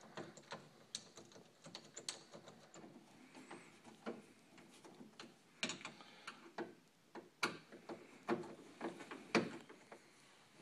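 Faint, irregular small clicks and metal taps from a screwdriver and the door handle's metal parts as screws are driven into a Kwikset passage handle.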